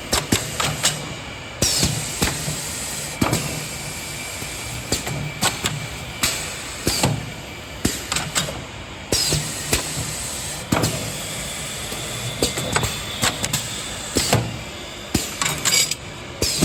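Automatic four-head drilling machine running through its drilling cycle: a steady machine hum broken by many sharp clicks and knocks, with a few sudden bursts of hiss.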